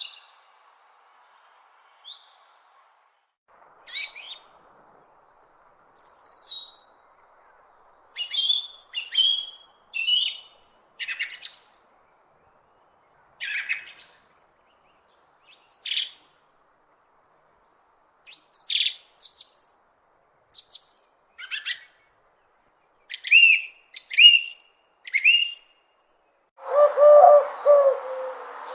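Wild birds chirping: a string of short, separate calls and trills, roughly one a second with quiet gaps between them. Near the end comes a longer, lower and louder call.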